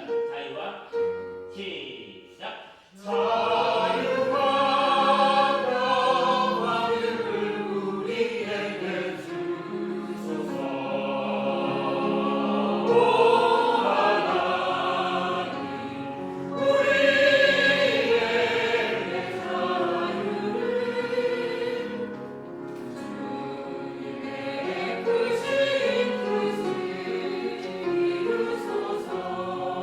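Church choir singing a sacred choral anthem in rehearsal, coming in full about three seconds in after a few short sounds, then singing long held chords.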